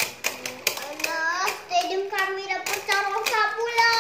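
Spinning Beyblade tops clacking against each other and the plastic stadium in quick sharp clicks. From about a second in, a child's voice joins in long, gliding tones, with the clicks still going here and there.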